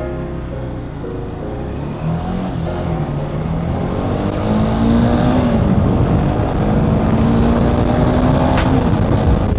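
Honda CBR300R single-cylinder engine under acceleration as the bike gets going, rising in pitch and dropping back twice, as at upshifts, with the level climbing.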